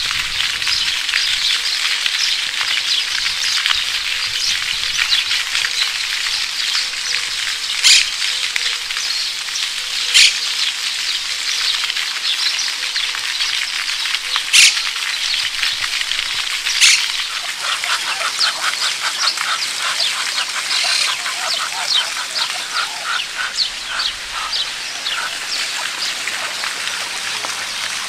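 Waterfowl by a park pond calling in a run of rapid, evenly repeated quacks from about two-thirds of the way in, over a steady crackling hiss of outdoor ambience. A few sharp clicks stand out earlier on.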